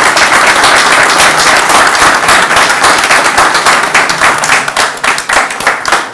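Audience applauding: dense, loud clapping that thins out and fades near the end.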